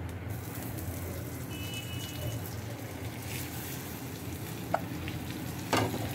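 Butter sizzling in a frying pan as pav buns toast in it, steady throughout. A short tap comes about three-quarters through, and a louder knock near the end.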